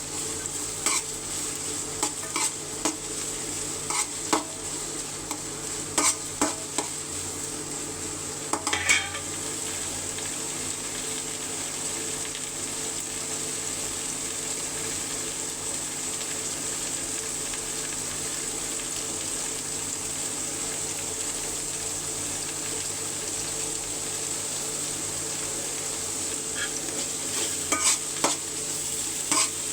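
Food frying in oil in a cooking pot, sizzling steadily, with a spoon scraping and knocking against the pot while it is stirred in the first several seconds and again near the end.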